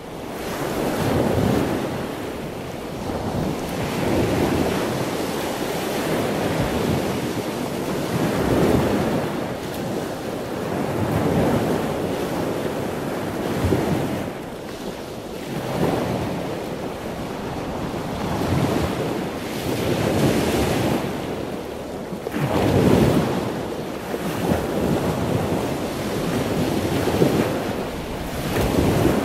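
Strong wind blowing across an open ship's deck and buffeting the microphone, swelling and easing in gusts every few seconds.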